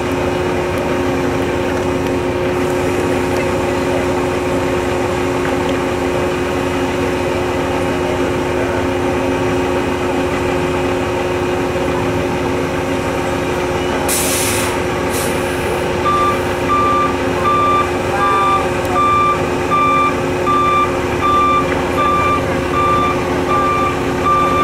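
Heavy diesel engine running steadily, with a short hiss of air brakes a little past halfway, then a truck's backup alarm beeping steadily, a little over once a second, as a big rig reverses.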